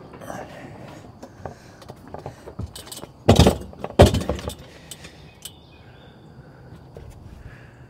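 Gear being set down and shifted in a pickup truck's bed: two loud clunks about three and four seconds in, among lighter knocks and rattles.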